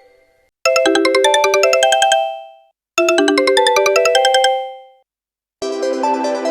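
Sony mobile phone ringtone: a short melody of quick notes, played twice with a brief gap between. A different, sustained synthesizer tone begins near the end.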